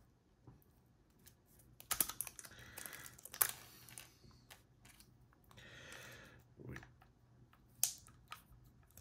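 Irregular small clicks and brief scraping as a thin aluminium beer-can shim is handled and worked against a combination padlock's shackle.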